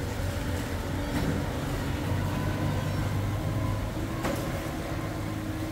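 Steady low rumble of a running vehicle, with a sharp click a little past four seconds in.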